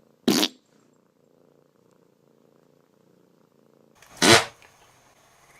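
A domestic cat purring faintly and steadily, broken by two short loud noisy bursts about four seconds apart, the second longer and louder.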